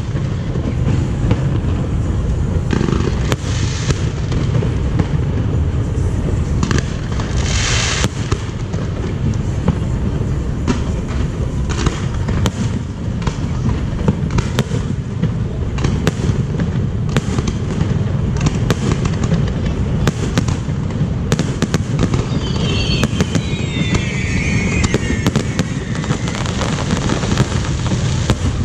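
Fireworks display: a continuous low rumble of shell bursts with many sharp cracks and pops. A falling whistle comes through about three quarters of the way in.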